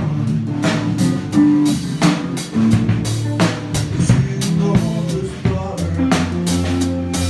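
Live band music: a drum kit played with snare, bass drum and cymbal hits in a steady beat, over sustained low notes from bass and guitar.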